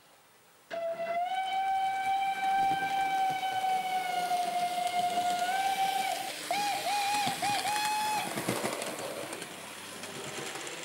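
Steam locomotive whistle: one long blast of about five seconds, then a string of short, wavering toots, over a steady hiss.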